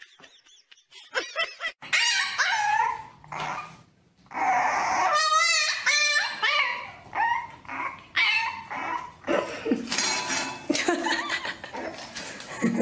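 Dogs barking and yipping: a quick run of short, high calls that bend in pitch, starting about two seconds in, with one wavering, drawn-out call midway.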